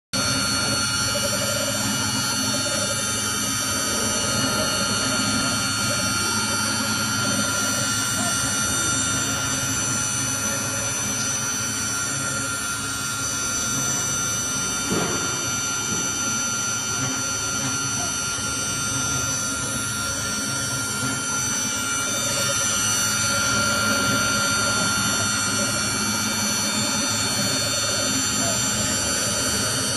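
A 5-axis CNC router's spindle milling an aluminum impeller: a steady machine whine in several high pitches over the noise of the cutter working the metal.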